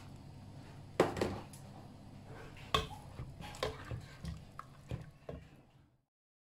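Black plastic ladle stirring boiled barley into coconut milk in a steel pot, knocking and scraping against the pot several times, the loudest knock about a second in. The sound cuts off suddenly near the end.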